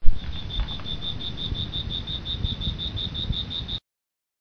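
Insect chirping in a steady rapid pulse, about six chirps a second on one high note, over a low, fluctuating wind rumble; it all cuts off abruptly near the end.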